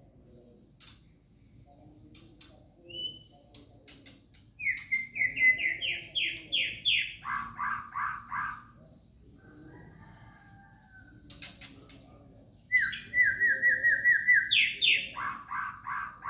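White-rumped shama singing: two loud phrases of rapidly repeated notes, one about five seconds in and one near the end. Each starts with a high run of notes and drops to a lower run.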